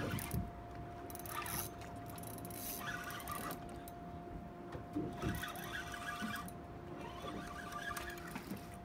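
A fishing reel being wound in several short spells, with a faint steady hum underneath.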